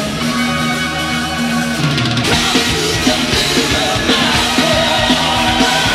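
Heavy metal song with drum kit and electric guitar. About two seconds in, a held note gives way to a busier run of drum hits.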